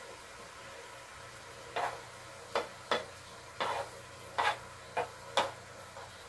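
A wooden spatula scraping sliced eggplant off a plastic plate into a cooking pot: about seven short scrapes and knocks starting about two seconds in, as the pieces drop into the pot. Under them, a faint steady hiss.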